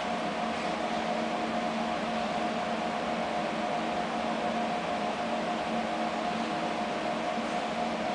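Steady mechanical hum, a few constant tones over an even hiss, with no change.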